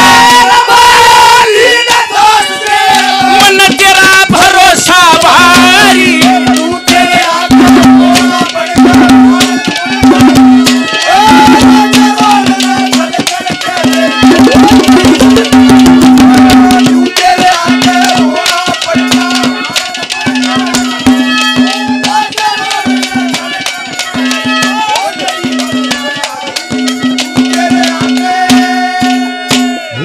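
Instrumental interlude of ragni folk accompaniment: hand drums keep a fast beat under a melody instrument and a repeated held low note. The drumming thins out about halfway through.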